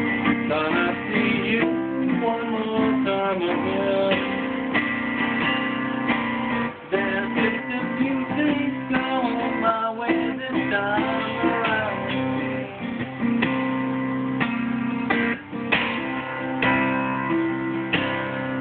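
Steel-string acoustic guitar played solo: an instrumental passage of ringing chords with a moving line of picked melody notes.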